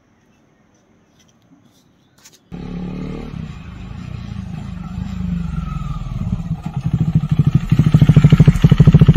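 KTM Duke 390's single-cylinder engine as the motorcycle rides up and passes close, starting abruptly about two and a half seconds in and growing steadily louder. Over the last couple of seconds the exhaust's rapid, even beat is loudest.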